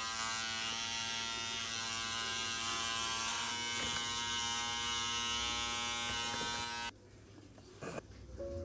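Electric hair trimmer buzzing steadily, then cutting off abruptly about seven seconds in.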